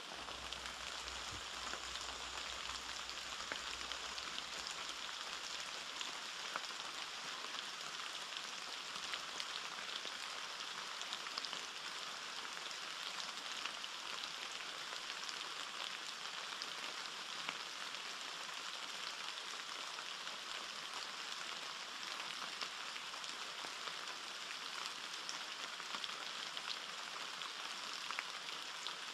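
Steady rain: an even hiss dotted with many small drop ticks.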